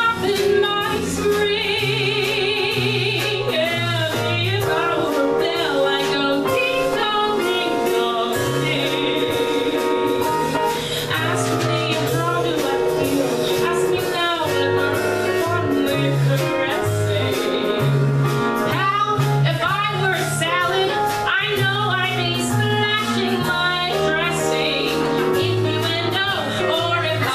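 A woman singing a show tune into a microphone, with vibrato on her held notes, backed by a live jazz combo of piano, bass and drums with cymbals.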